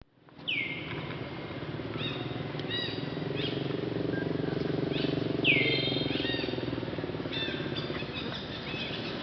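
High-pitched animal calls: two long falling squeals, about half a second in and again about five and a half seconds in, with several short chirps between them, over a steady low hum.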